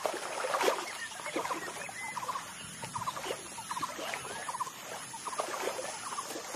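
Wild animal calls: short, high chattering notes repeated many times, often in quick runs of three or four, with a louder noisy burst about half a second in.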